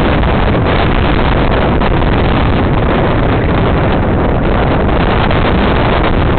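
Heavy wind buffeting the microphone: a loud, steady noise that does not rise or fall as the Jeep comes close.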